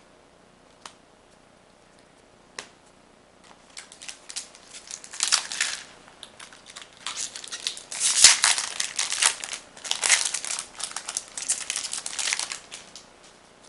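Foil Magic: The Gathering booster pack wrapper crinkling as it is handled and opened, in dense crackly bursts that grow louder midway, after a couple of light clicks.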